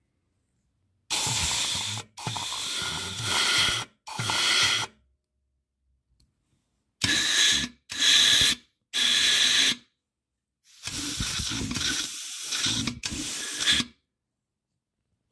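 Hand ratchet wrench ratcheting while bolts on a Chrysler A-904 TorqueFlite transmission case are driven. Seven runs of dense clicking, each from under a second to about three seconds long, separated by short pauses.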